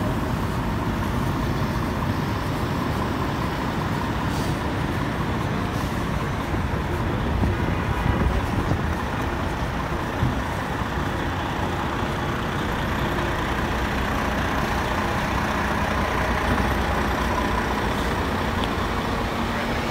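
Diesel engines of parked fire trucks running steadily, with aerial ladders raised, over general street noise.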